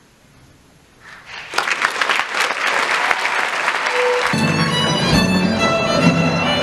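Audience applause swells up about a second in after a quiet pause. About four seconds in, instrumental music starts up under the applause.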